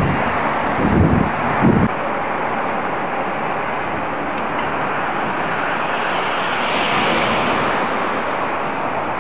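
Road traffic noise: a steady hiss of cars and their engines, swelling as a vehicle drives past close by about seven seconds in. It opens with a low, uneven rumble that cuts off abruptly about two seconds in.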